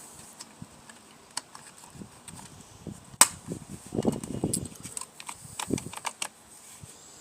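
Hand-work noises from rewiring a mower's power cord: scattered light clicks and taps of small parts and tools, with one sharp click about three seconds in and soft rustling of handling.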